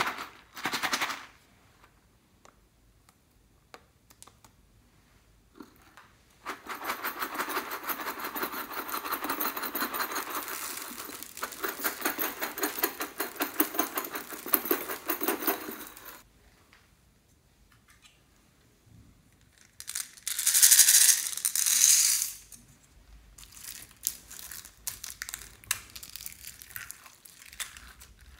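Small hard objects rattling and clicking against glass in a long dense run of about ten seconds. A short, loud, hissing burst follows later, then soft sticky squelches as hands work slime.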